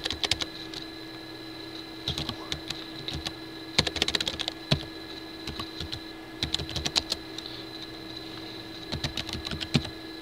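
Computer keyboard typing in several short bursts of keystrokes with pauses between them, over a steady faint hum.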